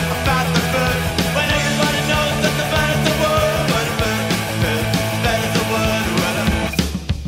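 Background rock music with a fast, loud, driving sound; it changes to a sparser section near the end.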